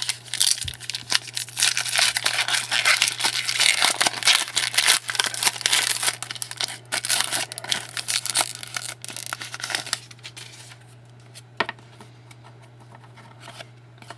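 A trading-card pack wrapper being torn open and crinkled, with cards rustling as they are handled, dense and loud for about ten seconds. After that it goes quiet apart from a few light clicks.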